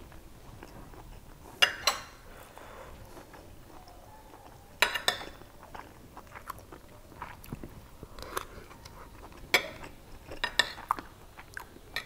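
Close-up eating sounds: chewing a mouthful of mutton biryani, with several sharp clicks and scrapes of a metal spoon on the plate.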